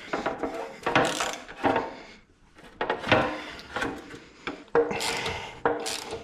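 A hand ratchet with a Torx bit clicking in short bouts, with hand tools clattering, as bolts on the motorcycle are loosened.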